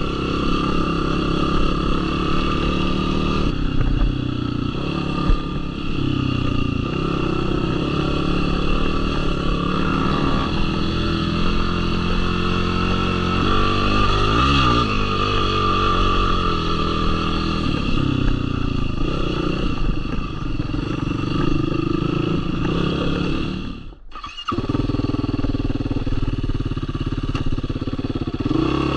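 Yamaha YFZ450R quad's single-cylinder four-stroke engine running on a trail ride, its revs rising and falling with the throttle, with rattling from the machine over rough ground. The sound cuts out for a moment near the end.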